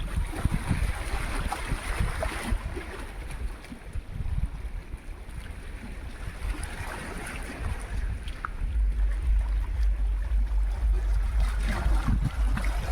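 Sea waves washing in, with wind buffeting the microphone in deep, uneven rumbles that grow heavier about two-thirds of the way through.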